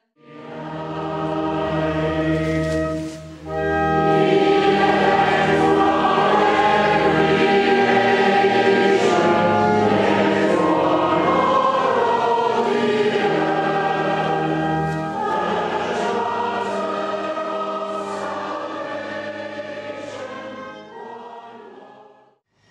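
Congregation singing a hymn with sustained organ notes beneath it. It fades in at the start, breaks briefly about three and a half seconds in, and fades out near the end.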